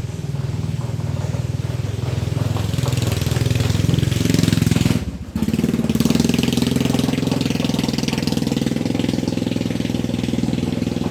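A vehicle engine running, getting louder over the first few seconds, then dipping out for a moment about five seconds in before running steadily again.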